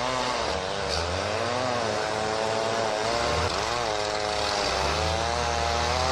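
Tractor engine revving under load while the tractor is stuck, its pitch dipping and rising again every second or two.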